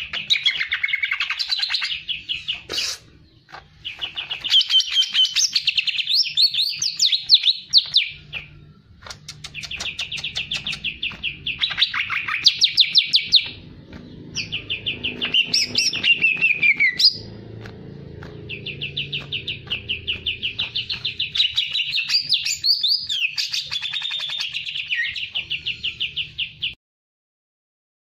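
A male green leafbird (cucak ijo) singing its fast, aggressive 'fighter' song: long bouts of rapid, evenly repeated high chattering notes mixed with warbled phrases, with short pauses between bouts. The song breaks off suddenly near the end.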